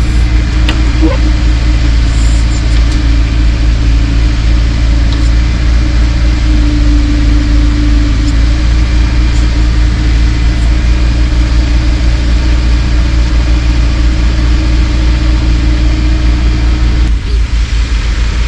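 An engine running steadily with a loud, deep rumble; its sound shifts slightly near the end.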